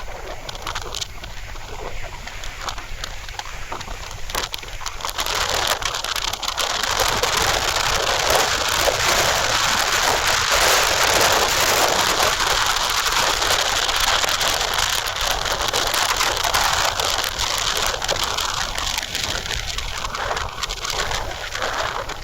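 Wind blowing hard in gusts, swelling about five seconds in and staying strong, with a low rumble of wind on the microphone.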